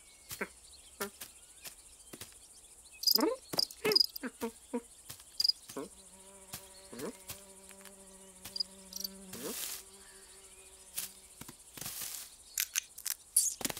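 Cartoon sound effects: a few short squeaks and clicks, then a steady insect-like buzz that starts about six seconds in and lasts about five seconds.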